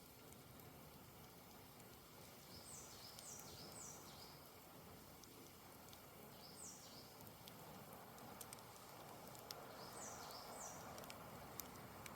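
Faint campfire crackling, with scattered small snaps and one sharper pop near the end, under a soft steady hiss. A bird calls three times, each call a quick run of two or three short, high, falling chirps.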